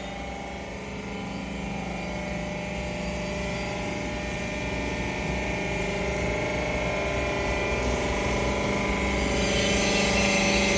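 Hydraulic baling press running: the electric motor and hydraulic pump hum steadily with several fixed tones, growing gradually louder, and a hiss joins near the end.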